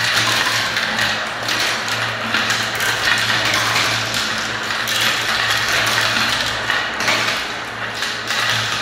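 Many glass marbles and small plastic balls rolling and clattering around the translucent plastic funnel bowls of a toy marble run: a continuous rolling rattle made of dense, overlapping clicks.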